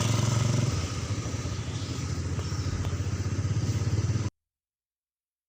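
A motor vehicle engine running with a rapid, even pulsing, cut off abruptly to silence about four seconds in.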